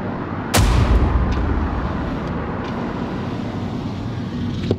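A car driving, heard from inside: a steady rumble of road and engine noise, which jumps suddenly louder about half a second in and then eases back.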